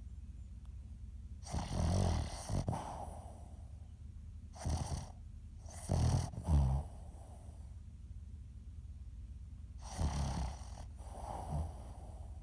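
Boston terrier snoring in its sleep: three rasping snoring breaths about four seconds apart, each a rattle on the breath in and out. Loud snoring like this is typical of the breed's short, flat-faced airway.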